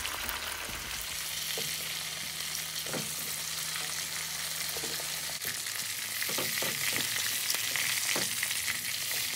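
Chicken pieces frying in hot oil in a cast-iron wok, a steady high sizzle. A wooden spoon scrapes and knocks against the pan several times as the pieces are turned and lifted out.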